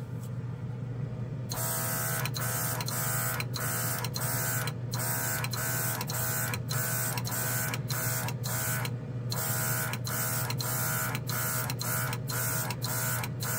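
Gaahleri airbrush spraying primer in repeated short bursts of hissing air, each cut off briefly as the trigger is let off, fed by a battery-powered mini compressor. The spraying starts about a second and a half in. A steady low hum runs underneath.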